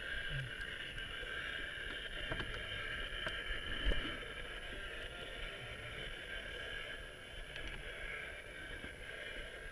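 Steady wind and water noise around an inflatable kayak, with a few small knocks from handling the fish and tackle, the loudest a dull thump about four seconds in.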